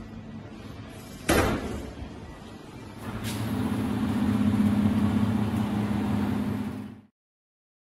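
Horizontal ribbon blender's drive motor running with a steady hum. A sudden loud knock comes about a second in, the hum grows louder from about three seconds in, and the sound then cuts off abruptly near the end.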